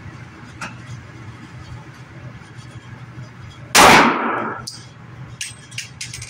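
A single shot from a Smith & Wesson M&P 2.0 .40 S&W pistol about four seconds in, echoing briefly in an indoor range, followed by a few light ticks near the end over a low steady hum.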